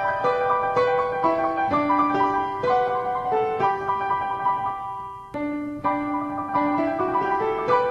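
Background piano music: a slow melody of held single notes over chords, with a brief lull about five seconds in before the next phrase.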